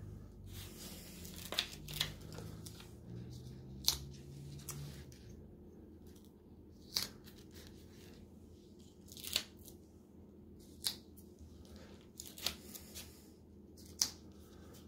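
Adhesive cork pads being peeled one at a time off their backing sheet and pressed onto the bottoms of tea light holders: a short, sharp peeling rip roughly every one to two seconds.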